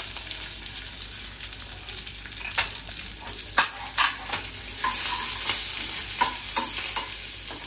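Sliced onions sizzling in hot oil with red chillies and curry leaves, being sautéed for a tadka. A metal ladle stirs them, clinking and scraping against the metal pan several times over the steady sizzle.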